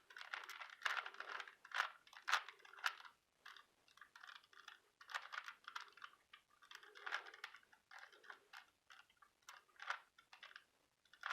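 Rubik's Cube being turned by hand through an algorithm: quick runs of plastic clicks and clacks as the layers snap round, with short pauses between the runs.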